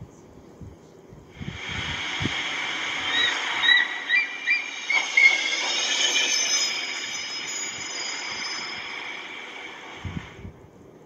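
Sea surf washing steadily, with about six short seagull cries two to four seconds in, heard through a TV speaker.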